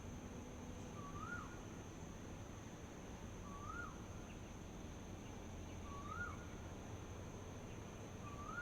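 Outdoor dawn ambience: a bird repeats a short call that rises then drops, about every two and a half seconds, over a steady high insect drone and a low rumble.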